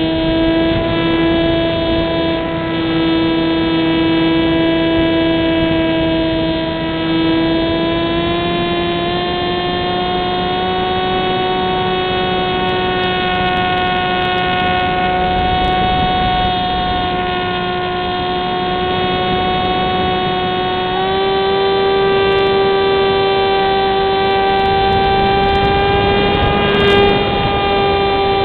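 Electric motor and propeller of a Wing Dragon RC model plane in flight, heard close up from on board: a steady whine over rushing noise that steps up slightly in pitch about a third of the way in and again about three quarters through.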